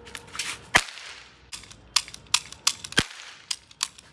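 Toy cap gun firing a string of about ten sharp cracks in quick, uneven succession, the loudest under a second in, after a brief hiss.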